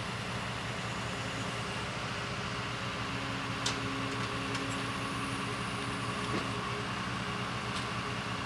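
Truck engines idling at the scene, a steady low hum, with a couple of faint clicks about halfway through.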